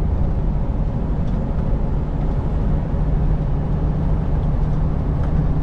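Semi truck's diesel engine running steadily with road noise, heard from inside the cab while driving; a low steady hum firms up about three seconds in.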